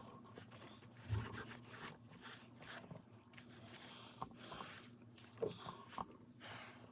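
Paper towel rubbing and scraping at gunk on a plastic laptop case: faint, uneven scrubbing strokes with a few light knocks against the computer.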